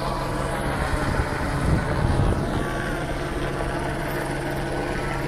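Police helicopter hovering overhead, a steady drone of rotor and engine.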